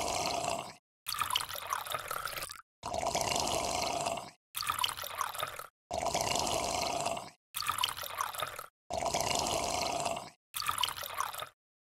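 Liquid sound effects in a quick series of short clips, each cut off by a brief silence: water pouring and filling alternating with bubbling liquid.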